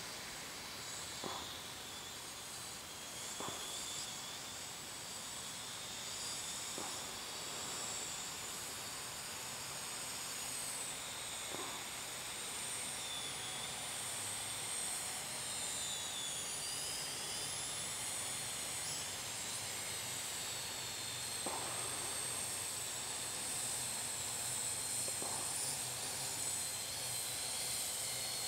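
Parrot drone's electric propellers whining high, the pitch wavering and dipping as it manoeuvres. The whine grows slowly louder as the drone is flown back in.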